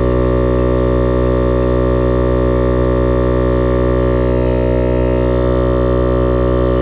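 Viair 88P portable 12-volt air compressor running steadily under load as it inflates a tire, a loud even hum with a stack of steady tones.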